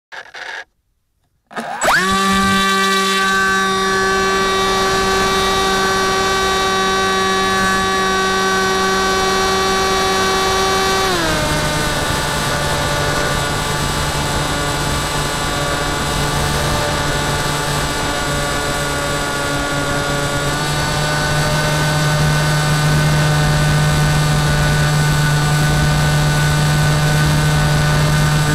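Phantom FX61 flying wing's electric motor and pusher propeller whining steadily at high throttle, heard from the onboard camera with wind rushing past. It starts abruptly about two seconds in; a little before the middle its pitch drops as the throttle comes back, and about two-thirds in it steps slightly up again.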